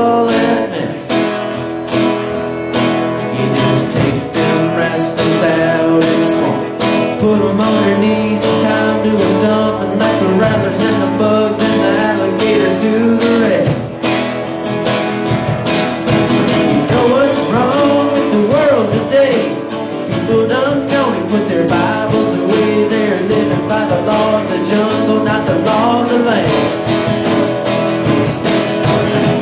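Live acoustic country band playing an instrumental break: a fiddle lead over strummed acoustic guitar and plucked upright bass, with a steady beat. From about halfway, the fiddle's bending, wavering line comes to the fore.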